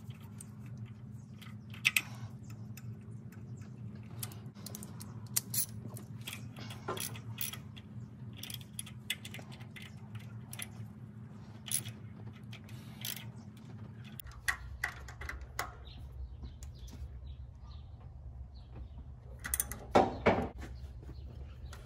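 Ratchet wrench clicking in short runs, with scattered light metallic clicks and taps, as the mounting bolts of a new EGR valve are tightened down. A few louder clanks come near the end, over a steady low hum.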